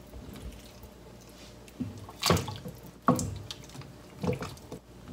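Pig's trotters being dropped into a stainless pot of dashi broth and pressed down by hand, giving a few sudden splashes and plops, the loudest about two and three seconds in.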